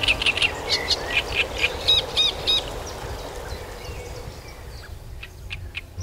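Great reed warbler singing: a rapid run of harsh, chattering notes ending in three loud, evenly repeated notes, stopping about two and a half seconds in.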